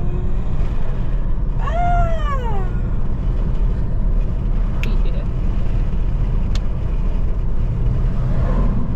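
Steady low road rumble inside a moving car. About two seconds in comes one drawn-out vocal sound from a person, rising and then falling in pitch.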